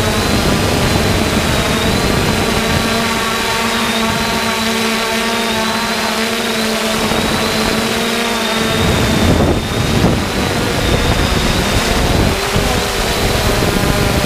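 3DR Solo quadcopter's electric motors and propellers whirring steadily, with a wavering high whine over a rushing, wind-like noise. About nine seconds in, the motor pitch shifts and there is a brief rush of noise.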